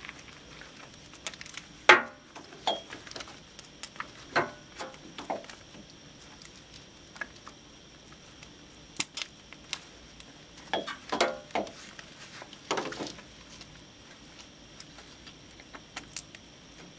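Scattered clinks, clicks and rustles of gloved hands handling a Western Suburbanite snowplow's mount hardware and wiring harness, with a sharp click about two seconds in.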